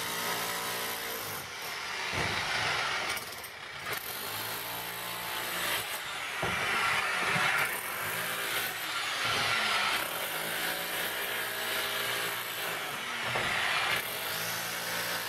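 Corded rotary hammer chiselling into a brick wall: noisy, run in repeated bursts of a couple of seconds with short pauses, its motor winding up and down each time.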